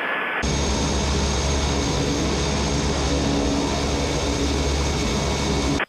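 Cessna 208 Caravan's PT6 turboprop engine and propeller running at taxi power, heard from outside the aircraft: a steady high whine over a low propeller drone. It comes in abruptly about half a second in.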